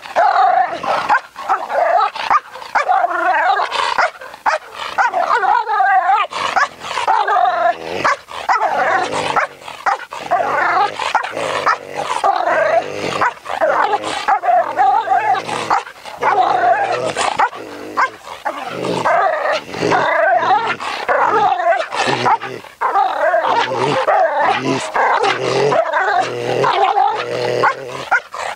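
Young Belgian Malinois barking hard over and over, almost without pause, while lunging on its leash: defensive barking from a dog that feels threatened and is reacting aggressively to drive the threat away.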